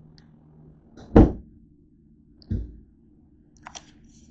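Two dull thumps about a second and a half apart, the first the louder, then a few faint clicks near the end, from things being handled and bumped on a wooden tabletop.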